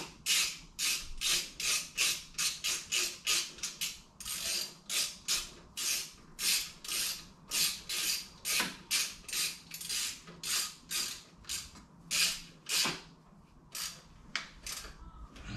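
Hand ratchet wrench being worked back and forth, one stroke of clicking after another at about two a second, tightening fasteners in an engine bay, with brief pauses along the way.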